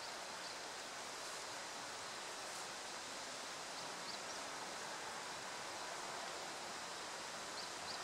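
Steady rush of flowing river water, with a few faint, short high chirps about four seconds in and again near the end.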